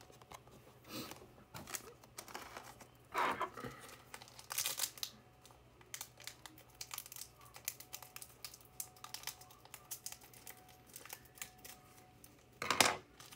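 Trading-card pack wrapper being torn open and crinkled: irregular crackling and rustling with a few louder rips, one about three seconds in and another near the end.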